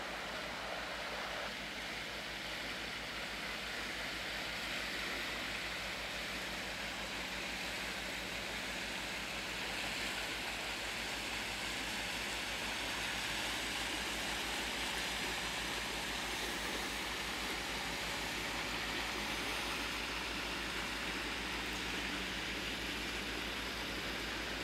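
Inland cargo barge passing on a canal: a steady rush of water from its wash, with a low steady engine hum underneath, growing a little louder about halfway through as the barge comes closest.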